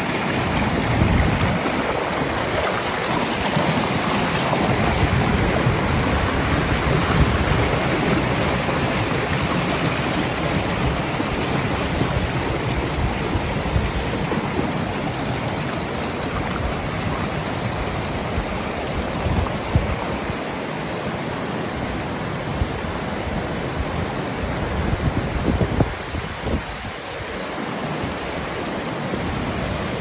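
Mountain creek rushing over rocks and small cascades: a steady, full whitewater rush.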